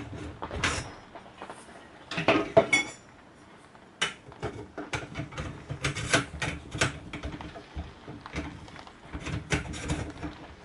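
Metal attachment arms of an Ultimate feeder fishing chair clattering and clinking against the chair's tubular frame as one arm is pulled out of its bracket and another pushed in, a run of knocks and rattles that is loudest a couple of seconds in.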